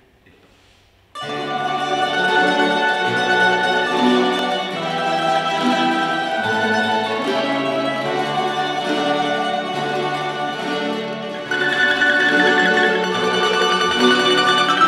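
Tamburica ensemble on Farkaš-system tamburas, small high tamburas, larger guitar-shaped ones and a bass berde, playing a traditional Dalmatian tune together. The playing starts suddenly about a second in and gets louder and brighter about two-thirds of the way through.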